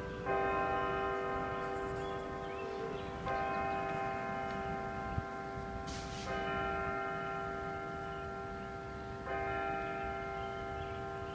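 A single tower bell tolling, struck four times about three seconds apart, each stroke ringing on until the next.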